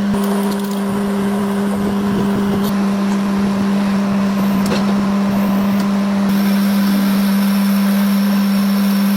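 A machine running with a steady low hum over a constant noisy background, with a faint click about four and a half seconds in.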